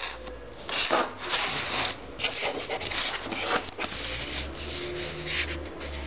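A cardboard box being handled and slid across a table: several short rubbing and scraping strokes of hands and cardboard.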